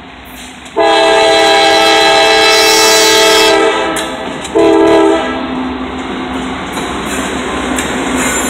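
CSX freight locomotive's multi-chime air horn sounding for a grade crossing: one long blast starting about a second in, then a short blast near the middle. The locomotive then runs past with a steady rumble of engine and wheels on the rails.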